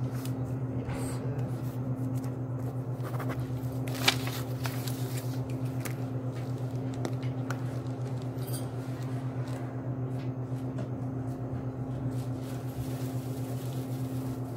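A steady low hum throughout, with scattered light clicks and rustles of small objects handled on a counter, and one sharp click about four seconds in.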